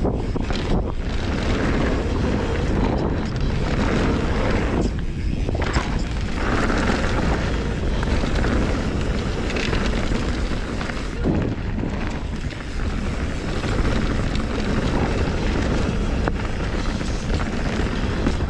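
Wind buffeting the microphone and a mountain bike's knobby tyres rolling over loose dirt and gravel at speed, with the rattle of the bike picked up through the handlebar-mounted camera. It is a steady, heavy rumble that eases briefly a couple of times.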